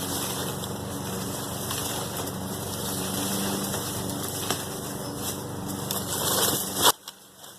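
A small engine running steadily, then cutting off abruptly with a sharp click near the end.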